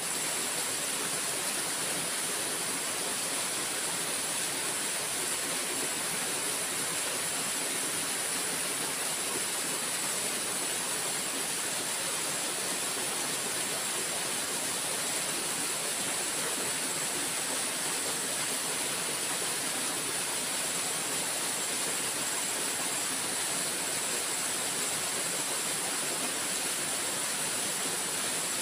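Steady rush of a shallow, rocky river flowing over stones, with a steady high hiss above it.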